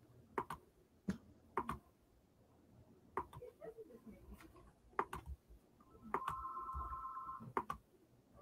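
Scattered single clicks from a computer mouse and keyboard. About six seconds in, a steady electronic beep lasts a little over a second.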